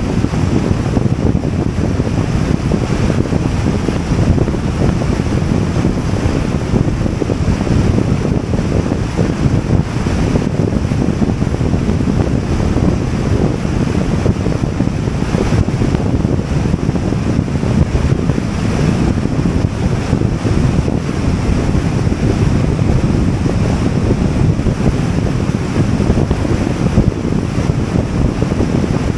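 Steady rush of wind and road noise from a vehicle travelling at highway speed, with wind buffeting the microphone.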